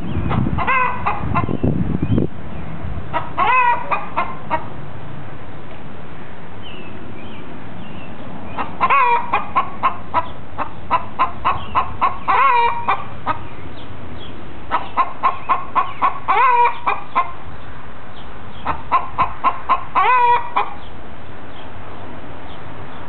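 Hen giving the egg song: four bouts of rapid clucks, each rising into a long drawn-out squawk, with pauses between the bouts. It is the loud call hens raise while a flockmate is laying an egg. A low rumble runs through the first two seconds.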